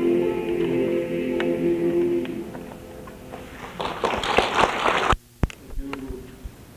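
Men's chorus holding the final chord of an a cappella song, fading out a couple of seconds in. About a second later comes a short burst of applause that cuts off abruptly, with a few clicks, as if the cassette recording was stopped and restarted.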